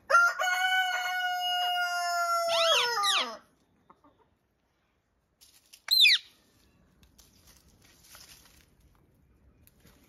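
A rooster crows one long, drawn-out crow of about three seconds that falls in pitch at the end. About six seconds in comes a single short, shrill bird call.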